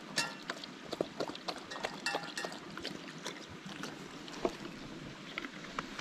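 Springer spaniel drinking from a stream, lapping water in a run of irregular wet splashes and clicks over the steady rush of running water.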